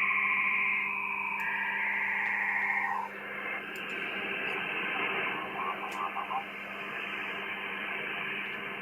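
Shortwave receiver audio from the 80 m band: several simultaneous wavering tones of a data transmission that draws pictures on the waterfall display, cutting off about three seconds in and leaving steady band hiss, with a short faint burst of signal around six seconds.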